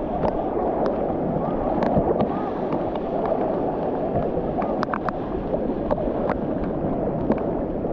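Water sloshing and churning close to the microphone, a steady wash with scattered small splashes and clicks.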